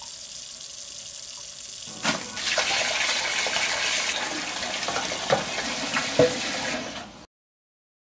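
Water running from a kitchen tap into a steel sink, turned up louder about two seconds in, with a few knocks of dishes in the sink; it cuts off suddenly near the end.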